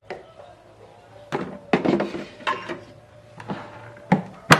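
Mito electric rice cooker being handled: several knocks and thunks as it is loaded and closed, then its lid snaps shut with a sharp click at the very end.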